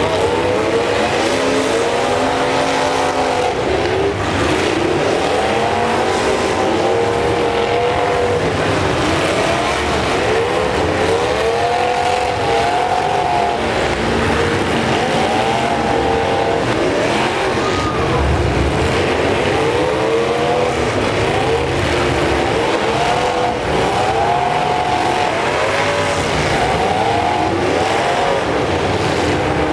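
Several demolition derby pickup trucks' engines revving hard together, their pitch climbing and falling again and again as the drivers work the throttle while pushing and ramming.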